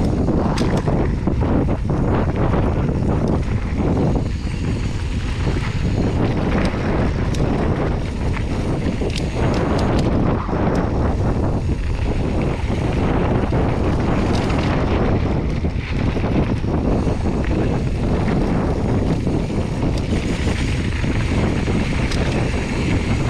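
Wind buffeting the microphone as a mountain bike rolls fast down a dirt and gravel trail, with steady tyre noise and scattered clicks and knocks from the bike over the bumps.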